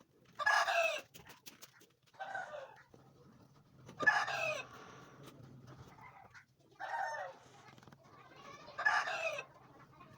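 Chickens calling: five short calls spaced a second or two apart, over a faint steady low hum that sets in about three seconds in.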